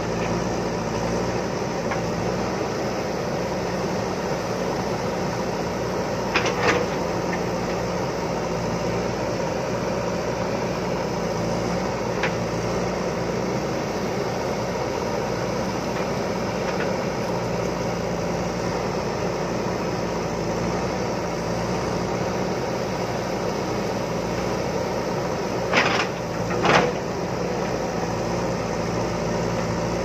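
JCB ecoXcellence backhoe loader's diesel engine running steadily under working load while the backhoe bucket digs into a stony hillside. A few sharp knocks of the bucket working the rock stand out above it: two close together about six seconds in, one around twelve seconds, and two more near the end.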